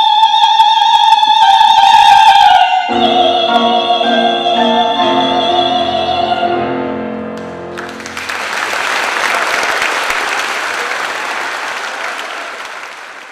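An operatic singer, in soprano range, holds a high final note with vibrato. About three seconds in, the accompaniment joins with a sustained closing chord. Both end about eight seconds in and are followed by audience applause that slowly fades.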